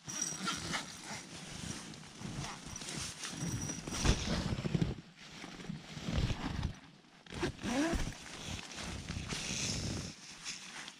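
Rustling of camouflage fabric and handling noise as the camera is shifted about against it, in irregular scrapes and brushes, with a short rising squeak about two thirds of the way through.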